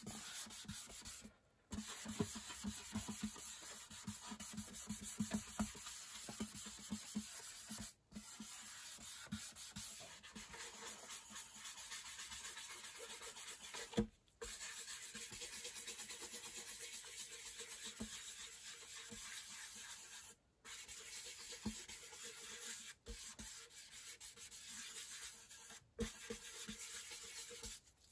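A dye-soaked pad rubbing and wiping over a guitar's bare wooden top, a steady scrubbing noise with a few brief breaks.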